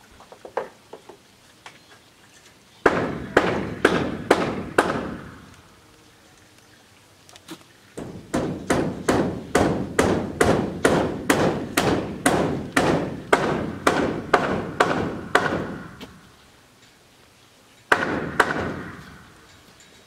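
Hammer blows in runs: about five strikes, then a long even run of around twenty at roughly two and a half a second, and two or three more near the end.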